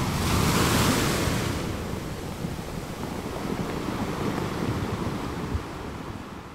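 Surf: a rush of waves that swells to its loudest about a second in, then slowly dies away.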